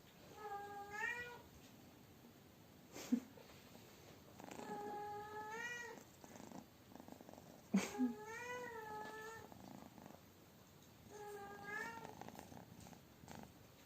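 A domestic cat giving four drawn-out meows a few seconds apart, each sliding up in pitch. Two sharp clicks come between them, the second just before the third call.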